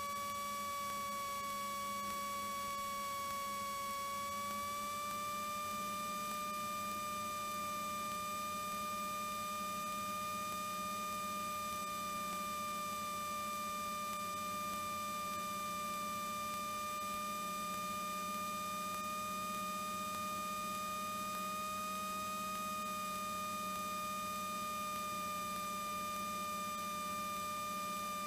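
Steady high whine with overtones over a low hum, the Cessna 182T's engine noise as it comes through the cockpit intercom feed; the pitch steps up slightly about four and a half seconds in.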